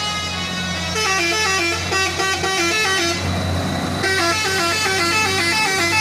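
Truck telolet horn playing a quick melody of rapidly changing notes in two runs, about a second in and again about four seconds in. Under it runs the steady drone of a truck engine.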